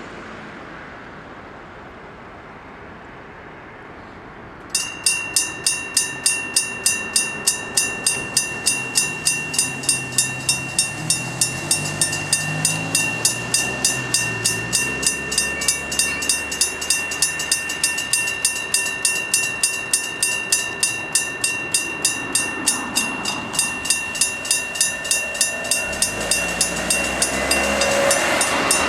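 Electric-bell level-crossing warning bell starts ringing suddenly about five seconds in and keeps striking steadily, about three strokes a second. Under it a Kominato Railway KiHa 200 diesel railcar approaches: its engine rises in pitch, then the train's rumble builds and is loudest near the end as it reaches the crossing.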